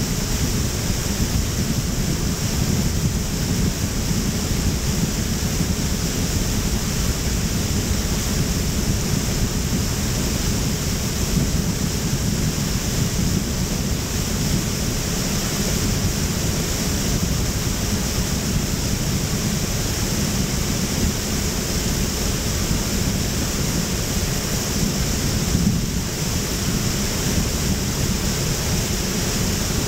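Steady rushing wind and water noise buffeting the microphone, with a faint steady hum underneath.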